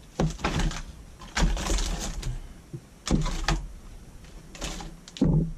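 Packaging rustling and crinkling in several short bursts as hands rummage through a cardboard box of bagged fishing lures.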